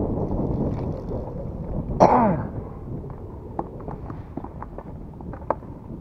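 Wind and water noise on the microphone, a single loud cough from a man about two seconds in, then a scatter of small sharp clicks and taps as the caught fish and tackle are handled in the inflatable boat.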